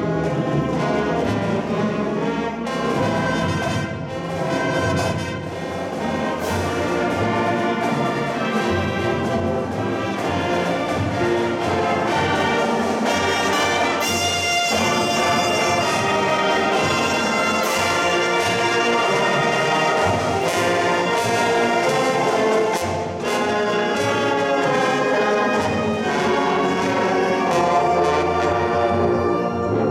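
High school marching band playing its competition field show: massed brass carrying sustained chords and melody over a drumline's steady hits.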